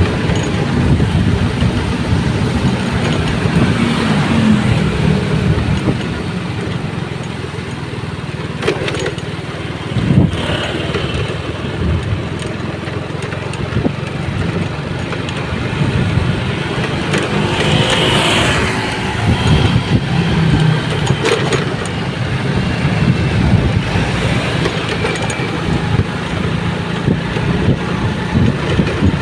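Strong wind in a rainstorm, gusting and rumbling on the microphone, with rain noise and a few sharp knocks.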